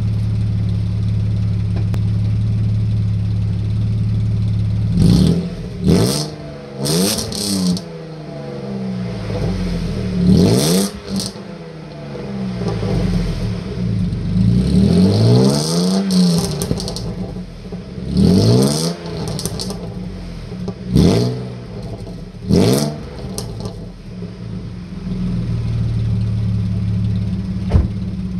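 Vauxhall Omega engine idling, then revved about eight times in short blips and longer rises and falls before settling back to idle, heard at the twin rear tailpipes. The rear tailpipe has blown through an old patch. A sharp click near the end.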